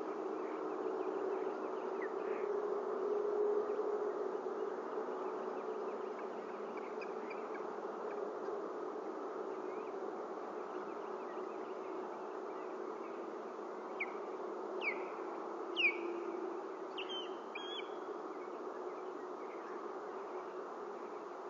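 A steady low buzzing drone, with a few short, sharp high chirps from a bird about two-thirds of the way through.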